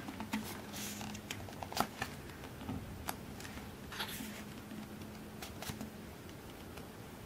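Pages of a softcover photo book being turned and held flat by hand: soft paper rustles about a second in and again about four seconds in, with small scattered clicks and taps of fingers on paper.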